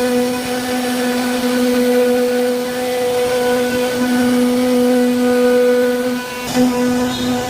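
CNC router spindle motor carving wood, giving a steady high whine with a brief dip and a sharp tick about six and a half seconds in.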